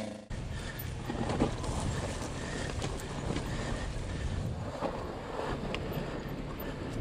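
Wind buffeting the microphone over the rumble of an off-road vehicle riding down a rough dirt trail, with a few knocks as it goes over bumps.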